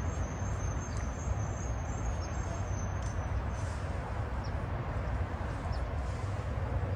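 Steady low outdoor rumble, with a few short, high bird chirps spaced a second or two apart and a thin high whistling tone that stops about three seconds in.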